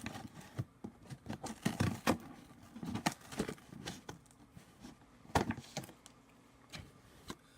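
A shipping box being handled and picked at while someone tries to open it: irregular scratching, tapping and knocking on the package.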